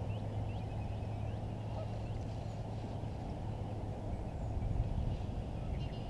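A bird calling in a quick series of short, hooked notes, fading out about halfway through, over a steady low rumble.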